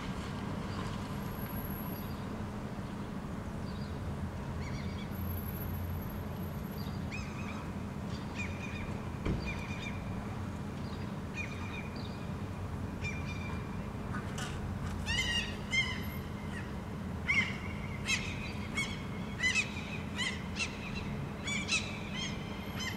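Short, pitched bird calls repeat over a steady low rumble of background traffic. They are scattered at first, then come quickly and louder, several a second, through the second half.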